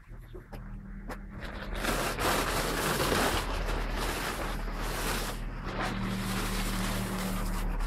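Plastic tarpaulin rustling and crinkling as it is dragged off a motorcycle, growing loud and dense about two seconds in.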